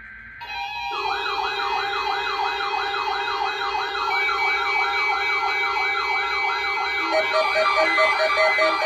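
Weather radio alert sounding for a Required Weekly Test: steady alarm tones come on suddenly, joined about a second in by a fast warbling siren that repeats about three times a second. Beeping joins in near the end.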